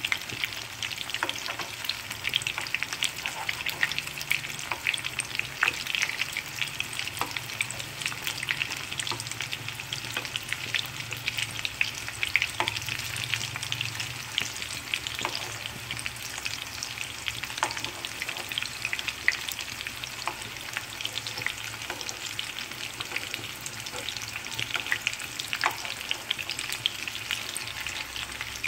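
Eggplant frying in hot oil in a pan: a steady sizzle with frequent small pops and crackles.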